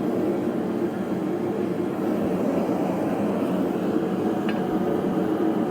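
A forge running with a steady, even rushing noise.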